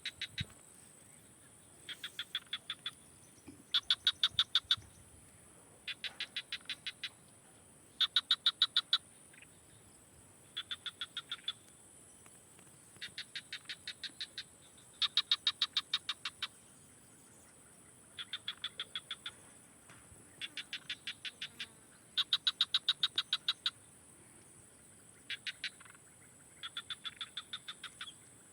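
Two animals calling back and forth, one louder and one softer, each call a quick train of about ten sharp, high-pitched pulses lasting about a second, repeated every couple of seconds. A steady high hiss runs underneath.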